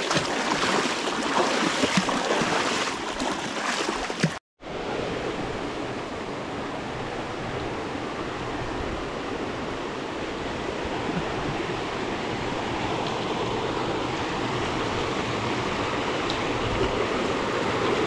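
River water rushing steadily over rocks. The sound drops out completely for an instant about four seconds in, then resumes steadier and duller.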